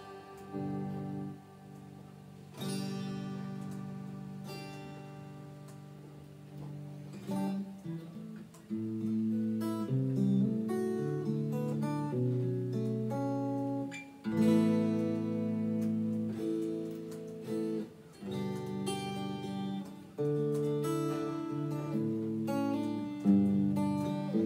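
Guitar played through a Bose S1 Pro speaker, plugged directly into its channel 2 with ToneMatch set for guitar: strummed chords and changing picked notes with a sustained ring.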